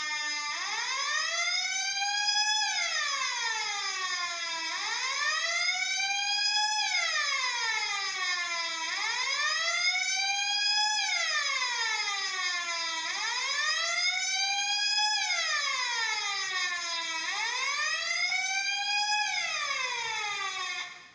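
Electronic fire-alarm siren from a two-555-timer circuit: a buzzy tone whose pitch glides up for about two seconds and back down for about two seconds, repeating about every four seconds. It cuts off suddenly near the end.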